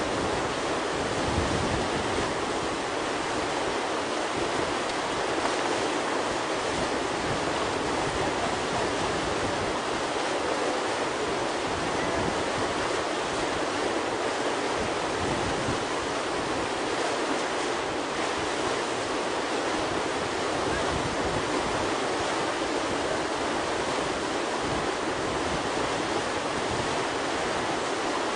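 Steady rush of whitewater pouring through a river hole, a continuous even roar of churning water.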